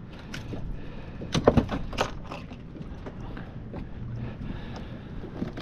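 Several sharp knocks and clatters, bunched about one and a half to two and a half seconds in, over a low steady rumble of wind and water.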